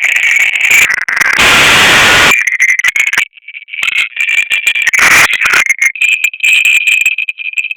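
Electric arc welding: a loud, steady crackling hiss for about two seconds, then a broken, sputtering crackle as the arc stops and restarts, with a thin, steady high whine behind it.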